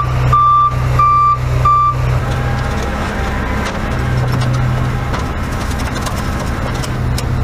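A heavy vehicle's reversing alarm beeping about every 0.6 s, stopping about two seconds in, over the steady low running of its engine.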